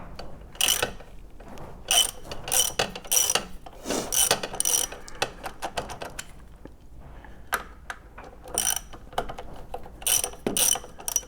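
Hand socket ratchet clicking in several short bursts of rapid clicks, with pauses between strokes.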